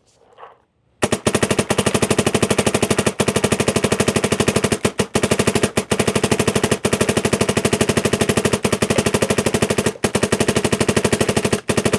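Dye MXR electropneumatic paintball marker firing rapidly and continuously on compressed air, an even stream of sharp pops at roughly a dozen shots a second, emptying a full pod with only a few split-second breaks.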